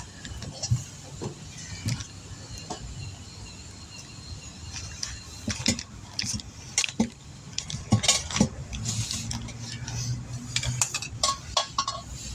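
Scattered metallic clinks and knocks of tire-changing tools against a steel wheel rim, with a low steady hum for about two seconds near the end.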